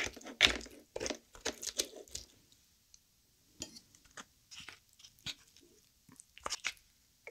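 Chopsticks mixing rice into the roe of a soy-marinated crab's shell, a dense run of wet clicks and crackles for about two seconds. Then sparser clicks as a wooden spoon scrapes rice out of the crab shell.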